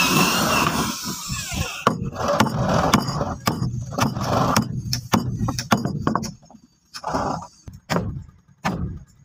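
Hammer blows on wood, about two a second and thinning out near the end, after a high squeal in the first couple of seconds.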